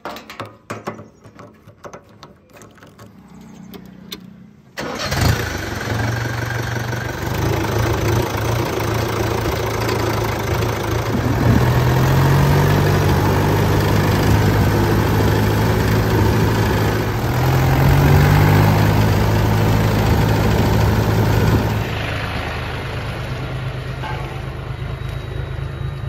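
A few clicks and knocks from the tractor's metal fuel cap and tank, then the tractor's diesel engine starts suddenly about five seconds in and runs, revved up twice before settling back to a lower speed near the end.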